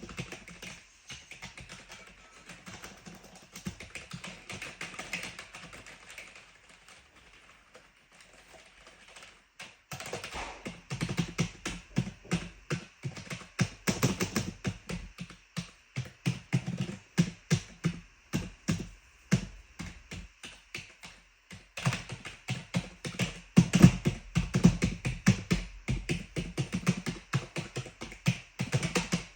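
Typing on a clicky keyboard. Soft, sparse keystrokes for roughly the first ten seconds give way to fast, louder typing, which stops briefly about two-thirds of the way through and then picks up again.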